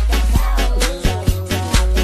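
Background music with a steady dance beat and heavy bass.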